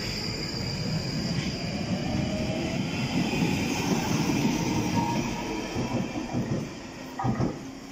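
A London Underground Northern line 1995-stock train pulls out of the station, its wheels rumbling steadily on the rails. The sound fades as the last car draws away, with a short knock near the end.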